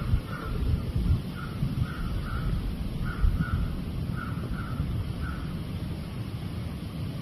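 Crow cawing repeatedly, a string of short caws often in pairs, over low wind rumble on the microphone.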